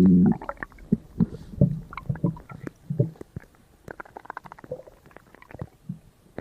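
Stomach growling sound effect, voiced with the DECtalk speech synthesizer's Ursula voice. A loud low growl breaks off a moment in, followed by a string of small, irregular gurgles and clicks.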